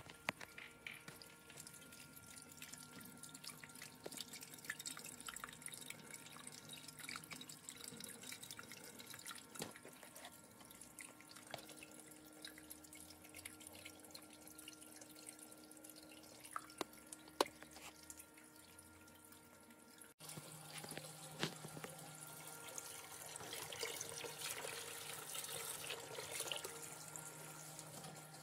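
Water dripping and trickling as a home-built hydroponic flood-and-drain pipe fills and its overflow drains, with a faint steady hum underneath. The trickling grows louder about two-thirds of the way through.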